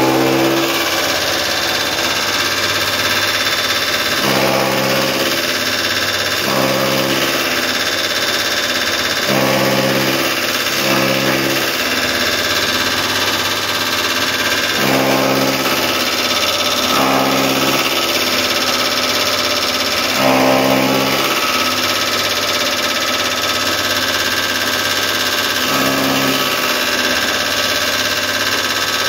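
Electric chaff cutter running steadily as dry straw is fed by hand into its blades and chopped, a continuous mechanical din of motor and cutting.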